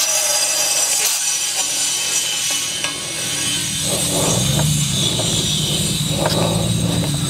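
A 16-gram CO2 cartridge discharging through an inflator chuck into a flat ATV tire. The gas makes a steady hiss with thin high whistling tones, and a low hum joins about four seconds in.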